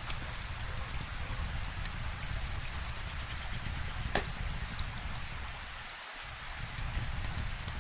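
Steady rain falling, with scattered sharp crackles and pops from a wood fire, one louder pop about four seconds in.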